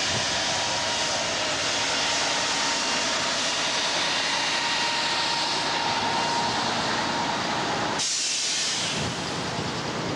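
Six-wheeled trial truck's engine running close by, a steady loud noise with a strong hiss. About eight seconds in, the sound changes abruptly and the low end drops away.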